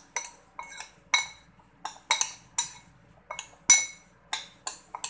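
Metal spoon mixing in a ceramic bowl, striking and scraping the sides in an irregular run of sharp clinks, about three a second.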